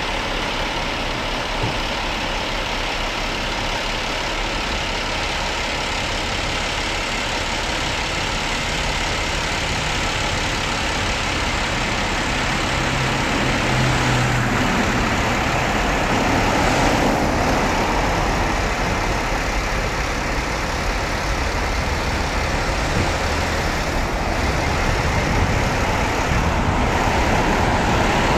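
Fire trucks running at idle: a steady, heavy engine hum.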